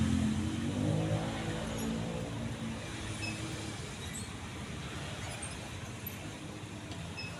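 Majestic deluxe ceiling fan running, a steady whirring rush with a low motor hum. The hum is strongest at the start and fades away over the first few seconds.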